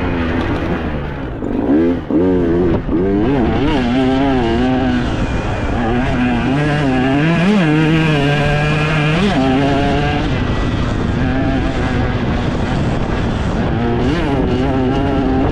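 Enduro dirt bike engine under hard riding, its pitch rising and falling quickly with the throttle for the first few seconds, then holding steadier with a few longer climbs and drops.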